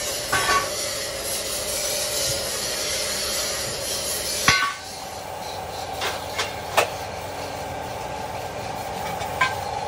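Metallic clanks and ringing knocks as steel channel and angle members of a rickshaw chassis frame are set down and struck with a hammer. There is a double clank about half a second in, the loudest ringing strike at about four and a half seconds, and several lighter taps later, over a steady faint hum.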